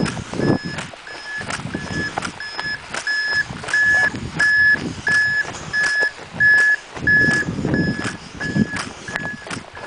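An electronic warning beeper sounding one steady pitch over and over, about three beeps every two seconds. Uneven low crunching and thumps run beneath it.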